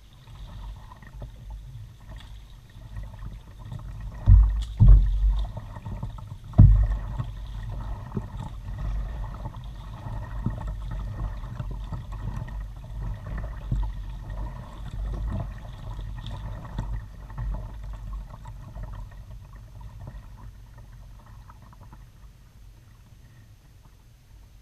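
Kayak being paddled along calm water: paddle strokes and water movement against the hull, with a few heavy low thuds around five and seven seconds in, quieter near the end.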